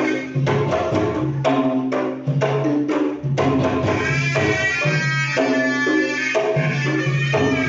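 Sundanese traditional music: a tarompet, a double-reed shawm, playing a high, reedy melody over hand-drum strokes. The tarompet line is strongest from about halfway through.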